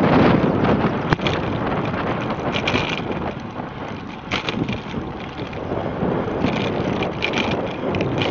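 Wind buffeting the microphone of a camera riding on a moving bicycle, over the steady rumble of the bike rolling on asphalt, with a single sharp click about a second in.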